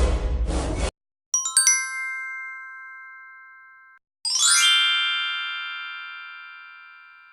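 Editing sound effects for video: a short noisy burst, then a quick tinkling run of bell notes into a ringing chord that is cut off. Then a rising shimmering sweep into a bright chime chord that slowly fades.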